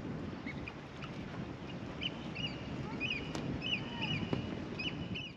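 Birds calling over and over in short hooked chirps, against a steady rushing noise; the sound cuts off suddenly at the end.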